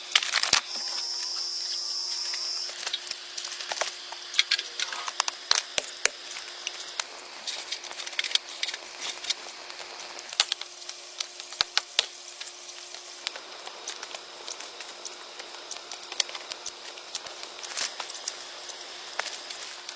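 Forest ambience: a high, steady insect buzz that comes and goes for several seconds at a time over a constant hiss, with scattered sharp clicks and ticks throughout.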